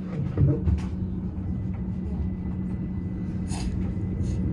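Train running, heard from inside the carriage: a steady low rumble with a constant hum, a faint high whine joining about a second and a half in, and a few soft knocks.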